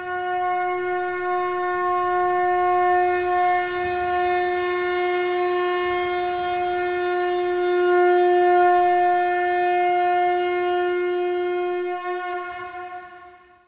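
Conch shell (shankha) blown in one long steady note that fades out near the end.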